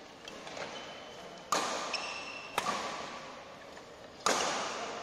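Badminton rackets hitting a shuttlecock in a doubles rally: three sharp hits about one to two seconds apart, each echoing in a large hall, with fainter taps before them and a brief high squeak between the first two hits.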